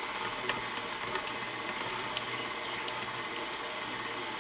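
Electric kitchen mixer running steadily on its low 'stir' setting, mixing butter, sugar and eggs in its bowl, with a steady hum and faint clicks.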